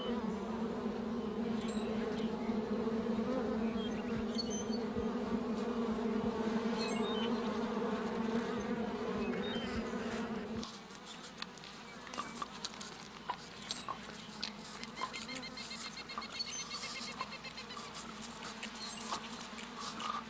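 A colony of honeybees buzzing at their hive entrance, a steady drone of many bees. About halfway through it drops to a fainter hum.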